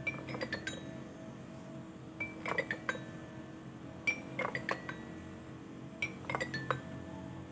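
Background instrumental music: short runs of high, bright notes about every two seconds over a steady held chord.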